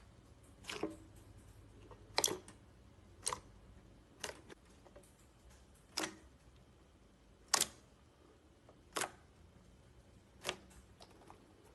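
Slime being pressed and poked, giving sharp little clicking pops about every second or so, eight in all.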